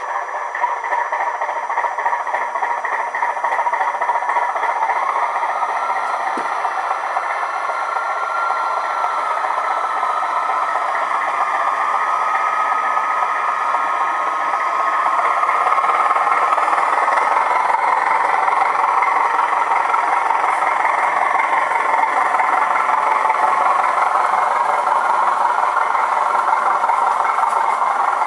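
Howes sound chip in a model Class 205 'Thumper' diesel multiple unit playing the unit's diesel engine sound through a small loudspeaker, thin with little bass, a steady mechanical chugging that grows louder about halfway through.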